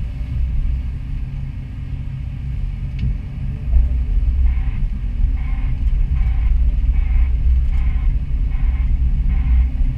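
Doosan DX225 excavator's diesel engine and hydraulics running under load, a steady low rumble heard from inside the cab. From about halfway through, a regular beeping comes in, roughly one and a half beeps a second.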